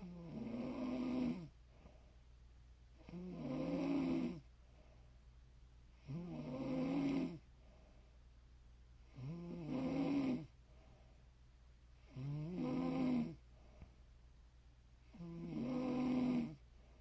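A woman snoring in her sleep: six pitched snores at an even pace, about one every three seconds. Each lasts just over a second, growing louder and then stopping sharply.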